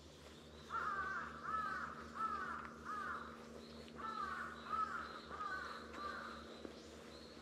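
A crow cawing in two runs of four caws, each caw falling in pitch and about 0.7 s apart, with a short pause between the runs.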